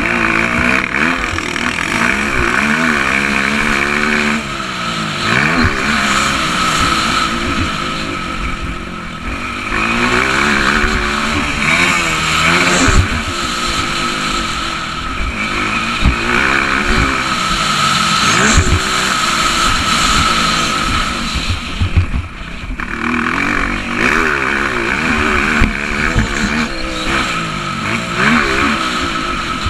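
Honda CRF230 dirt bike's single-cylinder four-stroke engine revving up and down as it is ridden around a motocross track. The throttle rises and falls repeatedly, and the engine drops off briefly three times: about four seconds in, around nine seconds, and around twenty-two seconds. It is heard from onboard the bike.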